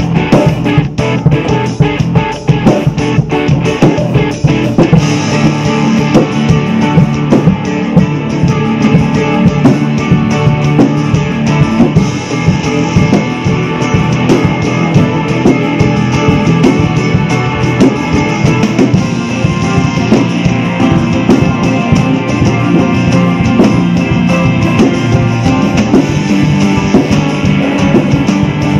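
Acoustic drum kit played hard along to an instrumental rock play-along backing track with electric guitar. Sharp drum hits stand out in the first few seconds, then the drums and guitar play densely together.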